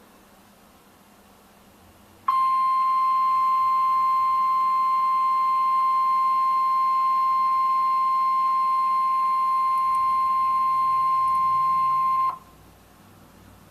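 NOAA Weather Radio 1050 Hz warning alarm tone, heard through a weather radio receiver: after about two seconds of faint radio hiss, a single loud, steady beep is held for about ten seconds and then cuts off. It signals that a warning broadcast, here a severe thunderstorm warning, follows.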